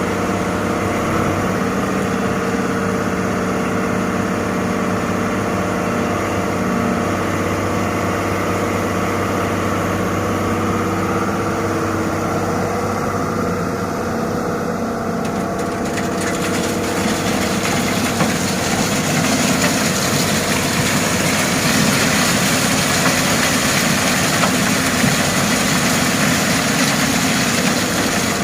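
Heavy diesel engine running steadily at idle. About halfway through, the sound grows louder, with a harsher hiss on top.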